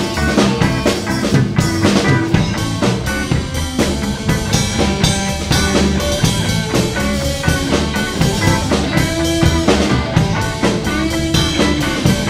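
Live rock band playing an instrumental passage: electric guitars and bass over a drum kit, with no singing.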